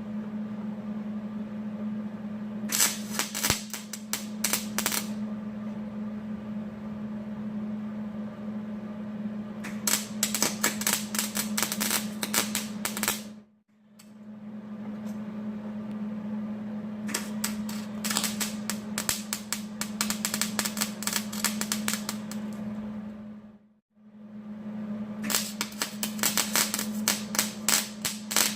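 MIG welder laying short beads: four bursts of rapid crackling spatter, each a few seconds long, over the welder's steady low hum.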